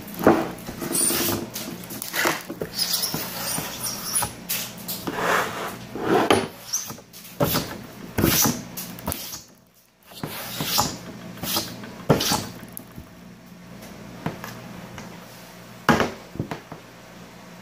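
Slime being squeezed and stretched by hand: irregular squelches and small sharp pops. About sixteen seconds in, a sharp knock as the plastic slime tub is handled on the table.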